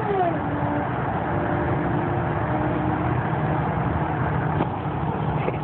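Steady tyre and wind noise heard from inside a car cruising on a highway, with an engine hum whose pitch falls just at the start and then holds steady.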